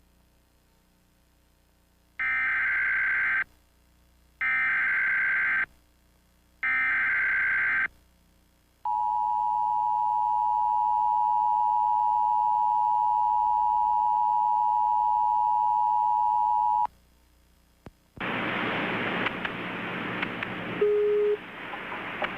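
Emergency Alert System activation: three screeching one-second bursts of SAME header data, then the two-tone EAS attention signal held steadily for about eight seconds. Near the end comes a stretch of hiss with a brief low beep.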